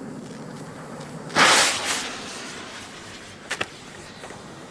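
A firecracker going off with a sharp bang about a second and a half in that trails off over half a second, then two small quick cracks a couple of seconds later.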